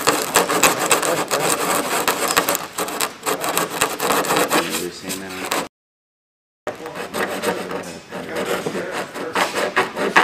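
Sandpaper rubbed by hand over smoothing compound on an aircraft wing, a dense rasping scrape of quick strokes as the compound is sanded to the wing's contour. It cuts to silence for about a second midway, then the scraping resumes.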